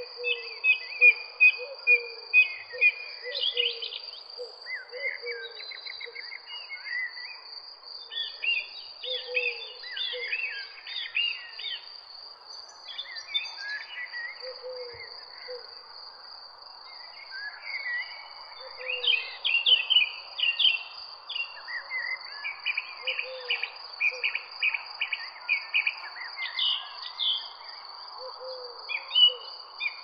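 Birds singing with many short chirps and trills over a steady high-pitched insect drone, with short low calls repeating beneath them and a faint steady hiss.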